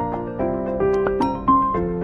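Gentle background music: a soft piano-like keyboard melody of sustained notes.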